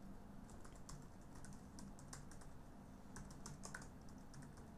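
Faint typing on a computer keyboard: irregular, quick key clicks as an email address is entered, over a low steady hum.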